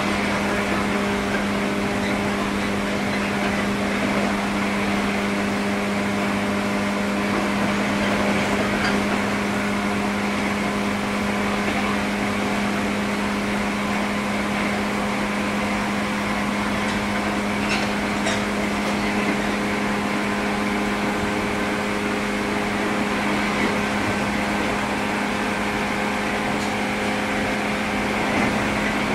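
JR 103 series electric train heard from inside the car: a steady hum holding one low tone, over an even running rumble, with no rise or fall in pitch.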